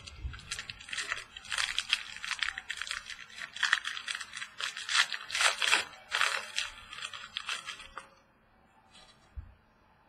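Trading cards and their packaging being handled at speed: a quick run of rustling, crinkling and flicking that stops about eight seconds in.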